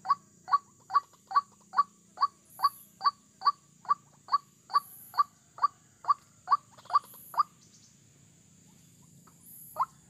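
White-breasted waterhen (ruak-ruak) calling: a rapid, evenly spaced series of short notes, about two to three a second, that breaks off about three-quarters of the way through and starts again near the end.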